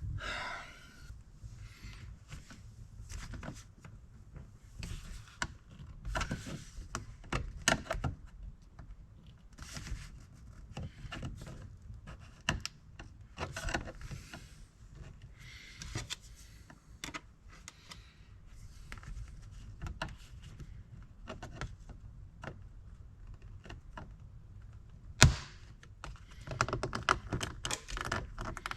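Plastic speaker cover on a Porsche 993 door being pried at by hand with a card and a trim tool: scattered small clicks, knocks and scrapes of plastic, with one sharp, loud snap about 25 seconds in.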